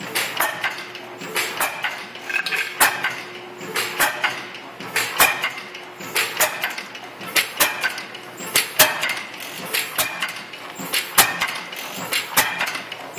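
Irregular metallic clinks and clanks, a few a second, of metal parts knocking together.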